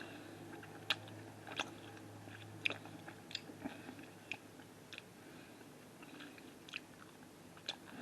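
A person chewing a mint candy close to the microphone: irregular sharp crunches and clicks, about one a second, over a faint low hum.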